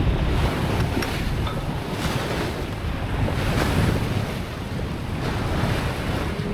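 Wind buffeting the microphone over the rush of sea water along the hull of a sailing yacht under way, rising and falling in gusts.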